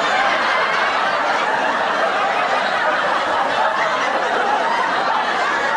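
Sitcom studio audience laughing steadily: many people chuckling and laughing together, possibly mixed with clapping.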